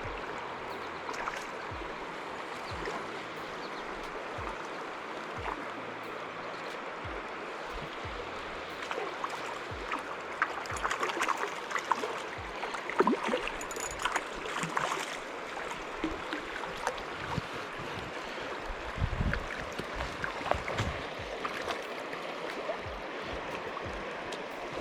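River water rushing steadily, with scattered short clicks and knocks that are busiest about halfway through.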